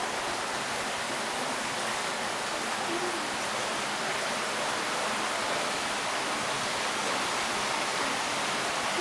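Steady, even rush of spring water flowing at the mouth of a cave.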